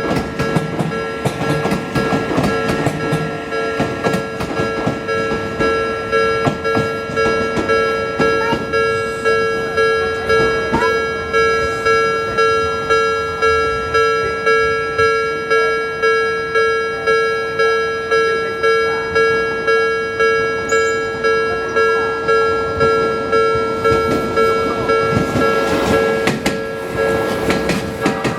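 Railway level-crossing warning bell ringing at a steady, even beat, with electric commuter trains running over the crossing, their wheels clacking on the rails near the start and again near the end.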